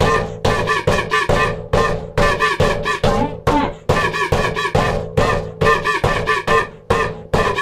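Music with a steady, fast beat, about three strikes a second, and pitched tones between the beats.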